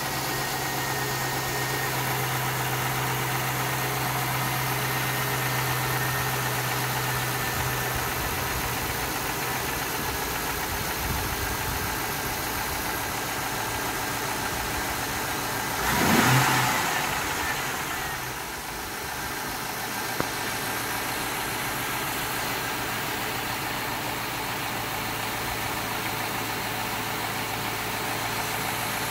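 Holden Commodore SV8's LS1 5.7-litre V8 idling steadily after start-up. Its throttle is blipped once about sixteen seconds in, the revs rising briefly and dropping back to idle.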